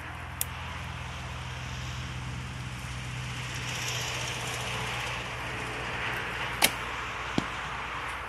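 A White Feather Wingz Carbon horsebow shot: the string snaps sharply on release about six and a half seconds in, and a fainter knock follows under a second later. A soft click near the start comes as the arrow is nocked. A steady low hum and outdoor noise lie underneath.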